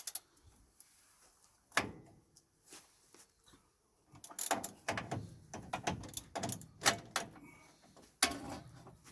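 Metal clanks and clicks of a wrench and engine parts as the alternator mounting on a GAZ-66 engine is worked loose: a sharp knock about two seconds in, then a run of clicks and rattles from about four seconds, and another knock near the end.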